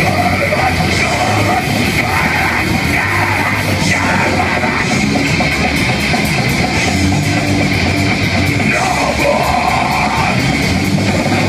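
A crust punk band playing live at full volume: distorted electric guitars, bass and fast drums with cymbal hits, and shouted vocals over the top.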